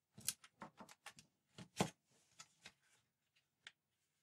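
Light clicks and knocks of a ZX Spectrum +2's keyboard assembly and metal back plate being handled and fitted into the plastic case: about a dozen short taps, the loudest a little under two seconds in.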